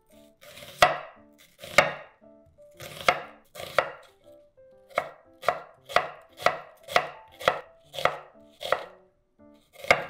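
Chef's knife slicing through an onion and striking a wooden cutting board: a series of crisp chops, a few spaced strokes at first, then a steadier run of about two a second.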